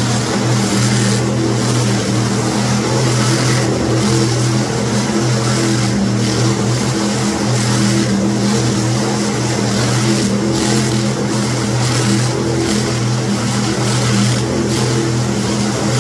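Monster truck engine held at steady high revs while the truck spins donuts in the dirt, its note wavering slightly without ever dropping off.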